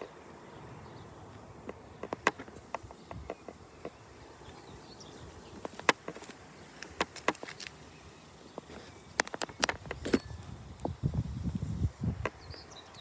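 Scattered sharp clicks and taps at irregular intervals over a faint steady background, with a low rumble about ten seconds in.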